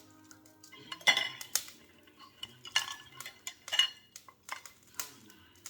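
Metal utensils clinking and clanking against a grill while pork belly is handled over charcoal: about six sharp strikes with a short ring, the loudest about a second in.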